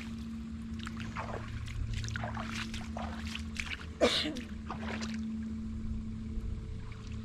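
Water splashing and lapping in short, scattered bursts over a steady low motor hum, with one louder sound about four seconds in.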